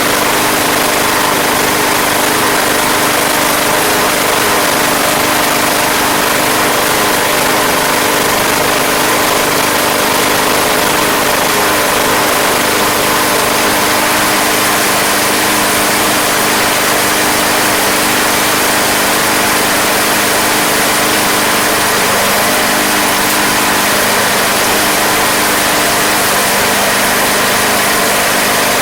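Craftsman Platinum push mower's 190cc Briggs & Stratton single-cylinder engine running steadily at an even speed, after a no-start fix with a replacement carburetor.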